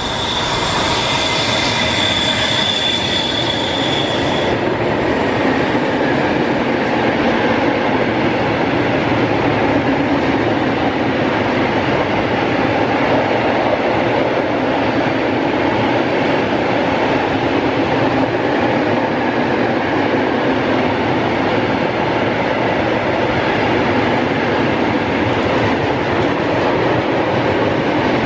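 Electric freight locomotive passing close with a high whine that fades after about four seconds. A long train of covered hopper wagons follows, rolling past with a steady rumble of steel wheels on rail.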